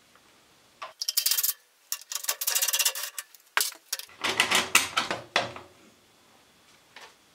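A socket ratchet clicks in two quick runs as the carburettor's 10mm nuts are undone, then metal parts clatter and knock as the air-cleaner case is handled.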